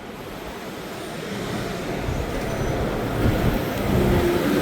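Street traffic: a motor vehicle's engine growing steadily louder as it approaches.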